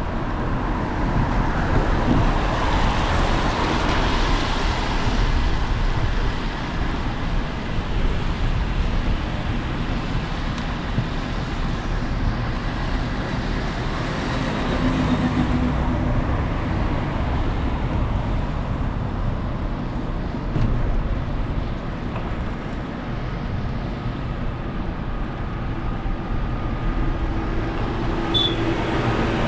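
Steady street noise of road traffic passing, an even rushing hiss with a strong low rumble.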